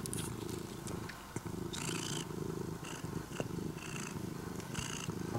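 Orange-and-white domestic cat purring steadily and continuously as it kneads and mouths a plush bed, with a few short, soft rustles in between.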